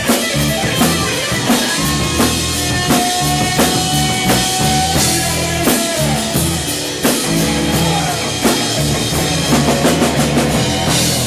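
Live rock band playing: electric guitars over a full drum kit with a steady beat, and a long held lead note about three seconds in.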